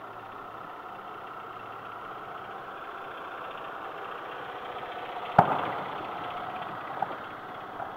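Distant fireworks: one sharp boom about five seconds in, followed by a couple of faint pops, over a steady background hum.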